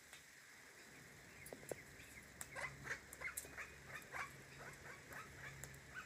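Sulphur-crested cockatoo cracking seed at a tray feeder: faint, irregular clicks and crackles, several a second, starting about a second and a half in.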